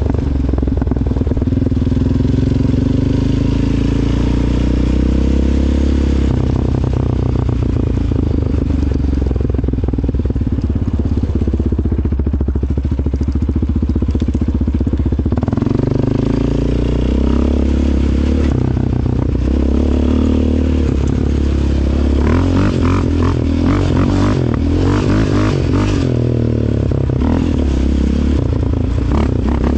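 ATV engine running under throttle while riding a rough dirt track. The engine pitch climbs, then drops suddenly about six seconds in, and shifts again several times. Rattling and knocks from the machine over bumps run through the last third.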